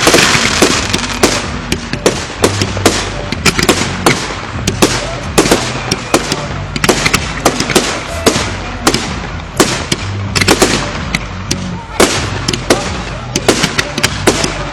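Fireworks display: a rapid, irregular run of loud bangs and crackles, several a second, with barely a gap between them.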